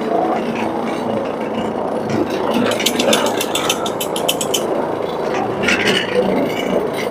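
Carpet agitation machine running steadily as it scrubs carpet, with its full weight on the brush because its wheels are lifted. A fast run of clicks, about eight a second, comes in around three seconds in and lasts a second and a half.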